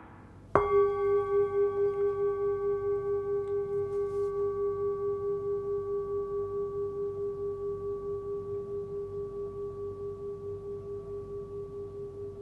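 A 12.4 cm hand-forged singing bowl, tuned to about 406 Hz (G#), is struck once about half a second in. It then rings on with a clear main note and higher overtones, dying away slowly with a regular wavering pulse in its tone.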